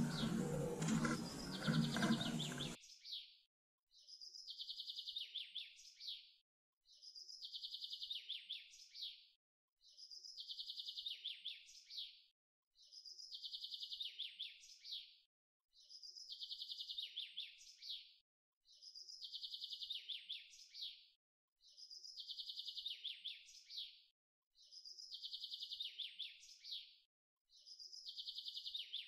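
Sparrow chirping: a rapid run of high chirps lasting about a second and a half, repeated as an identical loop about every two seconds. A louder, fuller sound cuts off sharply about two and a half seconds in.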